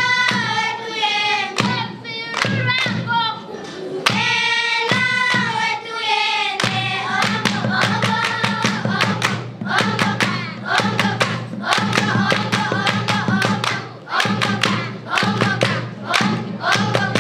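Group of girls singing a traditional Oshiwambo song together, keeping time with hand clapping that becomes steady and dense about halfway through.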